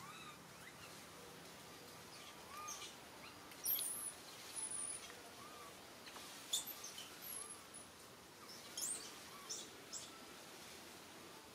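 Birds calling in the canopy: a short arched note repeated about once a second, and a few sharp, very high chirps, the loudest about a third of the way in, around the middle and again later.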